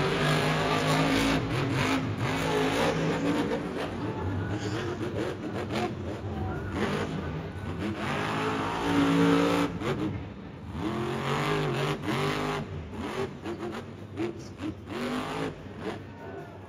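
Grave Digger monster truck's supercharged V8 engine revving hard, its pitch rising and falling again and again as the truck drives and pops a wheelie on the dirt. It is loudest about nine seconds in and eases off toward the end.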